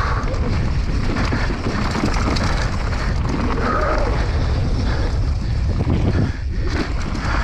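Wind buffeting the microphone of a downhill mountain bike at speed, over the rattle and clatter of the bike on rough ground.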